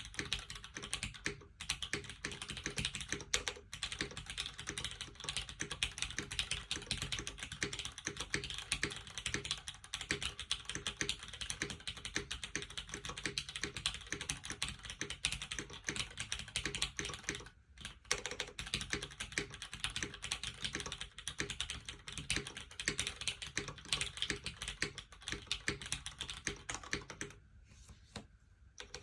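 Fast continuous typing on a mechanical keyboard with lubed, linear vintage Cherry MX Black switches in a top-mounted aluminium plate, under GMK keycaps: a steady stream of keystrokes. The typing stops briefly twice, a moment past the halfway point and again near the end.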